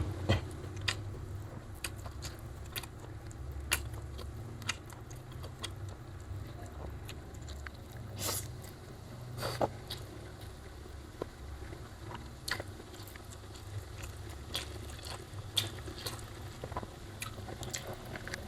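Close-up eating sounds: chewing of a rice meal with omelette, with scattered short clicks and smacks over a faint steady low hum.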